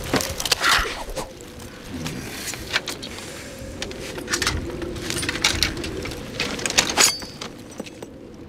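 Metal weapons clinking and clattering as swords, knives and an axe are handed over one after another: a run of uneven clanks and jingles, loudest at the start and again near the end, over a faint steady low tone.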